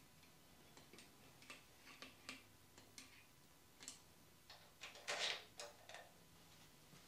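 Faint, scattered clicks and light metal taps as a Harland Sharp roller rocker arm is squirted from a thumb-pump oil can and set onto its stud, with a louder flurry of clicks about five seconds in.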